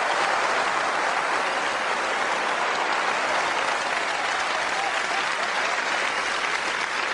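Audience applauding steadily, many hands clapping in a dense, even wash of sound.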